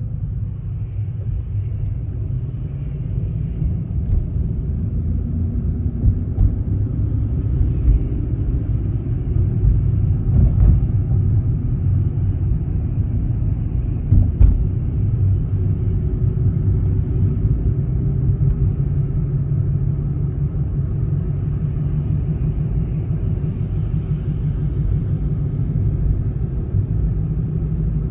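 Steady low rumble of a car driving, with road and engine noise, and a few faint short knocks along the way.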